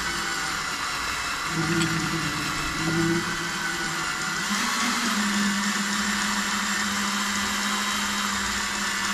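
Power drill running under load as its greased bit bores into the oil pan (sump) of a Mazda MX-5. The motor's pitch wavers for the first few seconds, then holds steady from about halfway.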